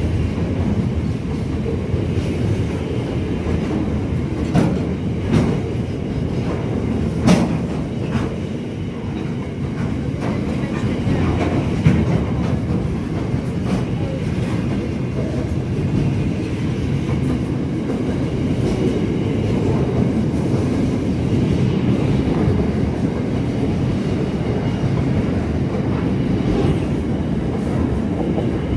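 Freight train wagons rolling past on the track: a steady low rumble with wheels clicking over the rail joints, and a few sharper knocks about five, seven and twelve seconds in.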